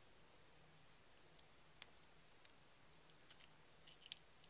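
Near silence broken by a few faint, sharp clicks of a paper clip and small parts against an airsoft M1911's lower frame as they are handled: one a little before two seconds in, another a little past three, and a quick cluster near the end.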